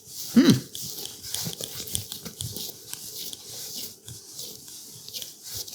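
Risen bread dough being handled by hand: soft sticky squishes, tearing and small taps as it is divided and shaped, with one brief, louder low sound about half a second in.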